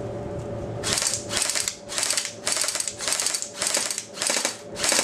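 Airsoft GI Custom Silent Death electric airsoft rifle (AEG) firing short rapid bursts, about eight in a row at roughly two a second, starting about a second in.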